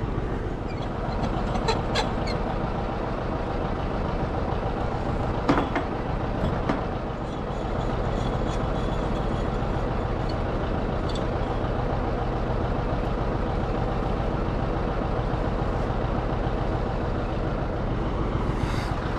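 Engine idling steadily, with a few sharp clicks and knocks, two near the start and one about five seconds in, from work on the yard-light fixture.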